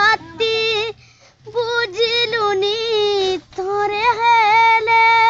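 A young boy singing a song solo in a high voice, drawing out long held notes, with a short pause for breath about a second in.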